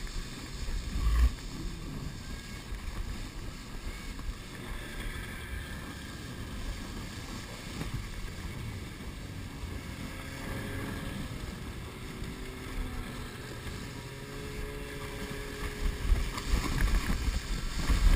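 Canoe hull sliding and bouncing over packed snow while towed by a snowmobile: a steady low rumbling hiss, with the snowmobile's engine humming faintly partway through. Heavier bumps come about a second in and again near the end.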